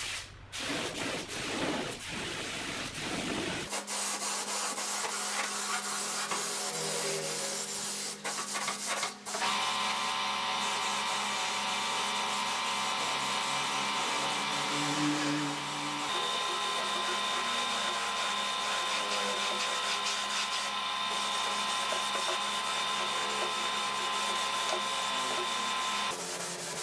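Gravity-feed air spray gun hissing steadily as it sprays a finish coat, in several stretches that change abruptly at cuts. A steady whine runs under the hiss in the later stretches.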